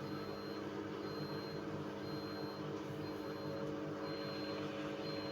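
8 kg washing machine running steadily just after being started, a low hum with a faint high tone coming and going evenly, as it takes in water for the wash.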